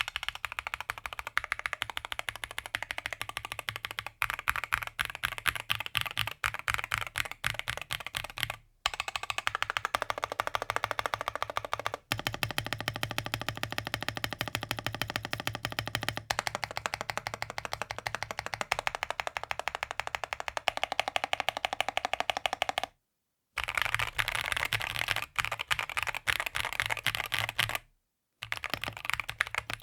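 Fast, continuous typing on a Rexus DAXA M61/M64 mechanical keyboard: dense, rapid key clicks, broken by a few sudden short silences.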